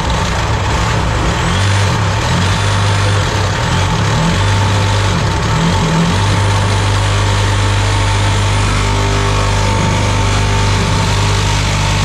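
DeWalt cordless reciprocating saw running at full speed, its blade cutting into the metal mounting ring of an old garbage disposal that is stuck in place. The motor drones loudly and unevenly for the first few seconds as the blade bites, then runs steadily.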